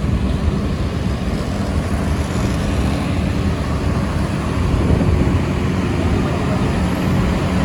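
Steady engine and road noise of a moving vehicle, a continuous low rumble with a faint steady hum.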